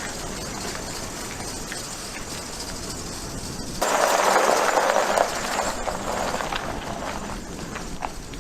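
2011 Ford F-150 pickup being driven slowly on a test drive after new limited-slip clutch packs went into its 9.75 rear differential. There is a steady running noise, and a sudden louder rush comes in about four seconds in and fades over a couple of seconds.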